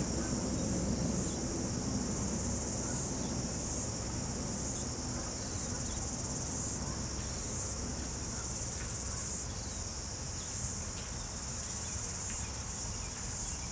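Insects chirring in a high-pitched band that switches on and off in stretches of a second or two, over the low rumble of a distant freight train that fades away.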